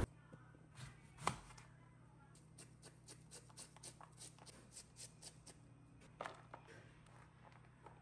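Faint knife strokes slicing cabbage on a chopping board: a sharper knock about a second in, then a run of light, even chops at about three a second, and two more near the end.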